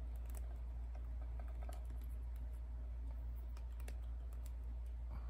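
Scattered small clicks of a plastic LOL doll head being handled and pressed onto its plastic body, over a steady low hum.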